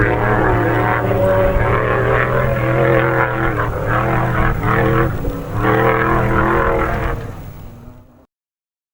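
Class 6100 off-road desert race truck engine running hard at high revs, its pitch rising and falling with the throttle. It fades out about seven seconds in.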